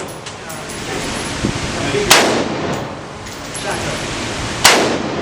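Two gunshots about two and a half seconds apart, each with an echoing tail, at an indoor range.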